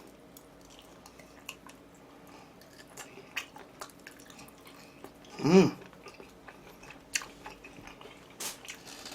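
Close-miked chewing, with small wet mouth clicks, from someone eating. About five and a half seconds in there is one short voiced sound, falling in pitch.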